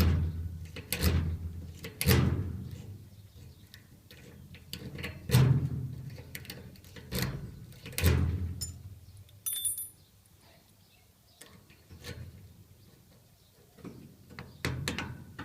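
Metal padlock clanking and knocking against gate hardware as the seized Master Lock is worked with picks and tension tool, with about six irregularly spaced knocks in the first half and only light clicks and ticks after that.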